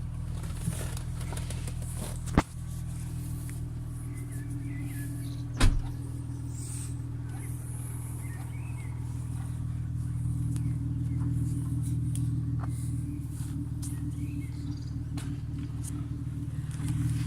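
Hyundai Coupe's 2.7-litre V6 on its stock exhaust, idling steadily with a low even note. Two sharp clicks cut through, about two and a half and five and a half seconds in.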